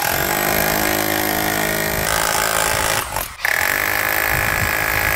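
A corded 13-amp SDS-Plus rotary hammer drill (GLORITY RH20A) is running under load as its bit hammers into wood and masonry. It cuts out briefly about three seconds in, then runs again with a higher-pitched tone.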